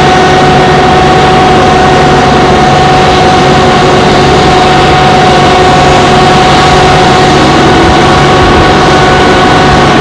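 Ready-mix concrete plant machinery running, a steady loud engine-like drone with a constant whine over it, echoing through a metal building.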